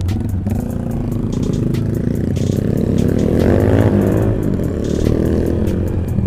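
Motorcycle engine running while riding along. About three seconds in, its pitch climbs and then falls back, as the engine revs up and eases off.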